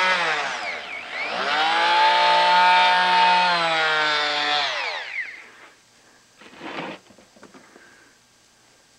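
DeWalt DWE315 corded oscillating multi-tool running with a high whine. It slows almost to a stop about a second in, speeds back up and holds steady, then winds down to a stop about five seconds in. A short scuffing noise follows.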